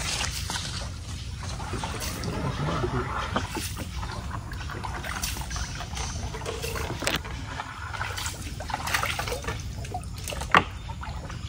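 Canoe paddle strokes dipping and splashing in river water, irregular and ongoing, with one sharp knock near the end.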